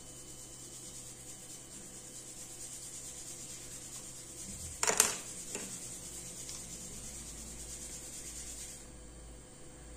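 A small tool rubbing and scraping on a phone's screen-connector flex cable, with one sharp click about halfway through. A faint steady high hiss runs underneath and cuts out about nine seconds in.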